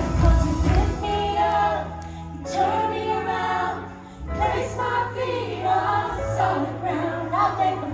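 Gospel worship music: a choir singing over a band with sustained bass notes, dipping briefly in loudness about four seconds in.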